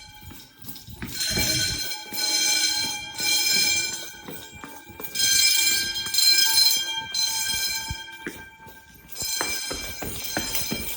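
Wheelock 10-inch fire alarm bells ringing on an activated building fire alarm, in a drill. The ringing swells and fades in loudness several times.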